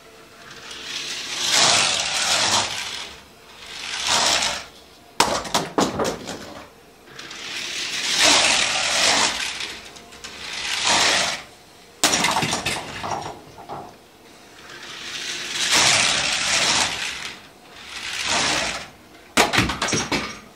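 LEGO train car rolling on plastic LEGO track through a vertical loop: rattling runs of the plastic wheels that swell and fade, several times, with clattering knocks about five, twelve and nineteen seconds in. The car runs suboptimally, with too little momentum.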